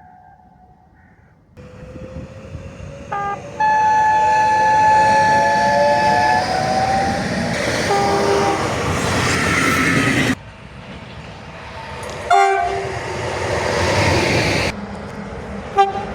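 A train approaches and sounds its horn: a short toot, then a steady blast of about three seconds. Under the horn, the train's rumble and clatter swell and a whine rises in pitch. After a sudden cut, another train gives two short horn toots as it passes.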